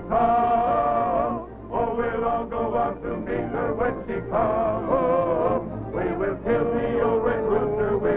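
Background music: a melody with a wavering pitch over accompaniment.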